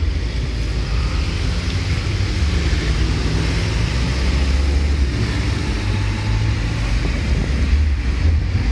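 Steady low rumble of road traffic, with an even hiss above it.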